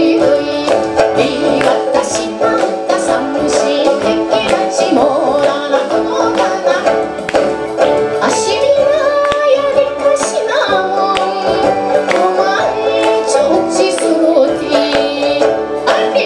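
Live Okinawan folk song: a woman singing to her own plucked sanshin, with synthesizer keyboard accompaniment.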